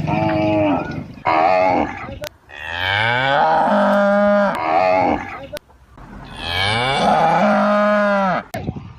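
Calf mooing repeatedly: a few short calls, then two long drawn-out moos, each rising in pitch at its start, about four seconds apart.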